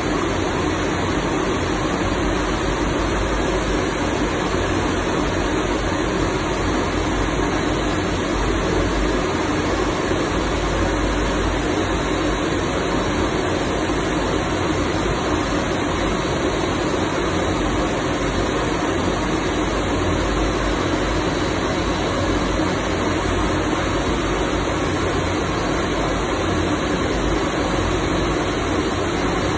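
Rubber-tyred gantry crane's diesel generator set running, a steady, unchanging drone.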